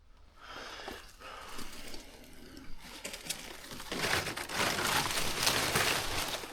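Dry leaves and brush crunching and rustling, building from faint to loud about four seconds in: noisy movement through dry cover.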